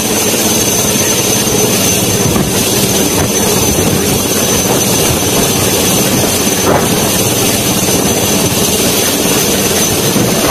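Military helicopter hovering close overhead: loud, steady rotor and engine noise with a constant high whine.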